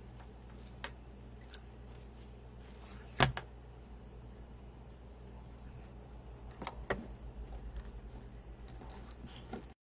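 A few scattered light clicks and taps over a steady low hum, with one sharper knock about three seconds in and a cluster of small clicks between six and seven seconds.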